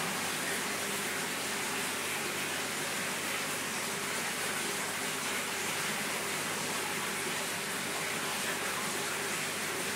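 Steady rushing and bubbling of aquarium water from the filter return and air stone, with a faint low hum underneath.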